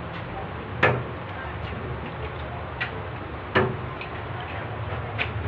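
Eggs being cracked against the rim of a large metal mixing trough: two sharp knocks, about a second in and past the middle, with a couple of fainter taps, over a steady low hum.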